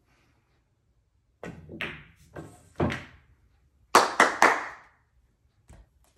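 Pool balls knocking as the final nine ball is shot and drops into a corner pocket, followed by a pool cue landing on the table bed with three loud thunks in quick succession.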